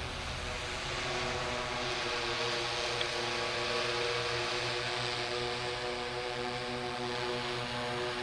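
Multirotor delivery drone in flight, its propellers giving a steady hum of several tones over a hiss of rushing air.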